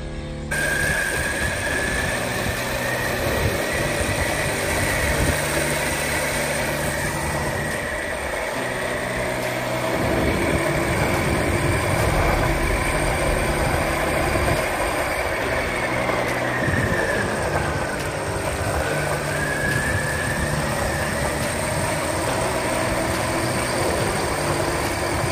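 The electric skateboard's 775 DC motor and gearbox whining under drive, the pitch rising with speed, dipping about two-thirds of the way through and climbing again, over the rumble of the wheels rolling on asphalt.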